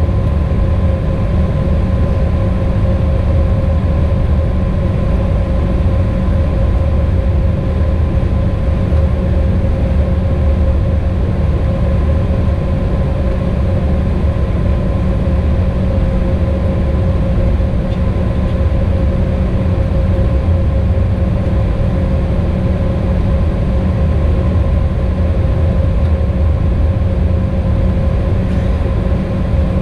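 Cabin noise inside an Embraer E190 taxiing: the steady drone of its GE CF34 turbofan engines at low taxi power, with a steady high hum over it and no rise in level.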